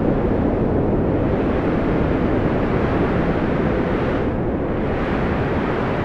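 Wind blowing steadily as a low, even noise with no distinct gusts or whistles. The higher hiss briefly drops away about four seconds in.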